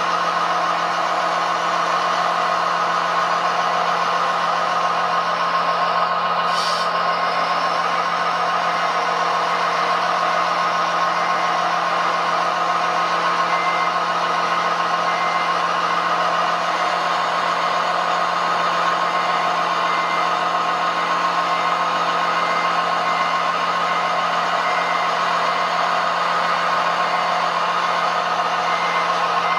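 Steady engine-like drone from RC model construction machines, with reversing beeps sounding in short runs on and off and a brief hiss about six and a half seconds in.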